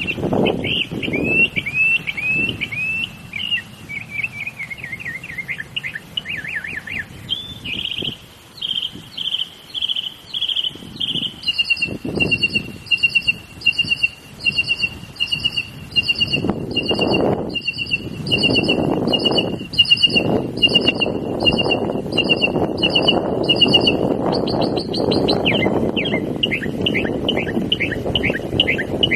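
Northern mockingbird singing: a long string of varied chirping phrases, each repeated several times before switching to the next, including a run of quick two-part notes about twice a second. A low rumble of passing traffic swells in about halfway through and stays under the song.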